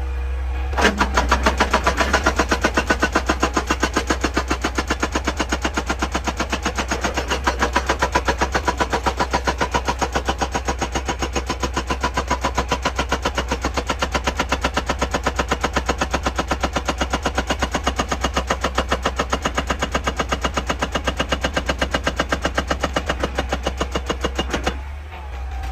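Excavator-mounted hydraulic breaker hammering rock in a rapid, even string of blows, starting about a second in and stopping shortly before the end, over the excavator's steady low engine drone.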